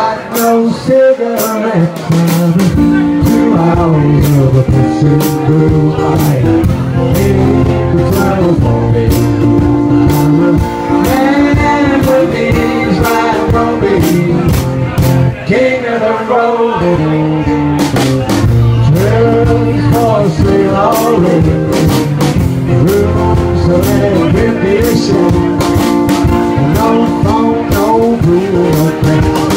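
A live band playing: a strummed acoustic guitar, a drum kit with cymbal and drum hits keeping a steady beat, and a man singing.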